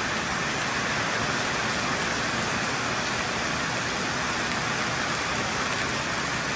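Heavy tropical rain pouring steadily onto a gravel lot, with a stream of runoff water falling from overhead and splashing onto the gravel close by.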